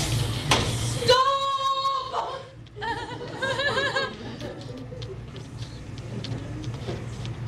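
A low steady rumble cuts off about a second in. Then a young performer's voice calls out one long held note, and after a short gap a shorter, wavering vocal phrase.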